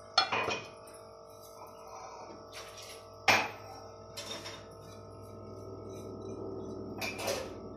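Background music with sustained chime-like tones, and a few short knocks of a plate against a cooking pan as spices are tipped in from it: one near the start, two in the middle and one near the end.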